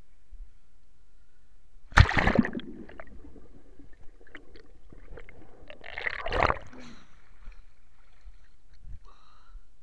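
Water splashing and sloshing against a handheld action camera as it is dipped into shallow water, in two loud splashes about two seconds in and again around six seconds in, with small gurgles and drips between.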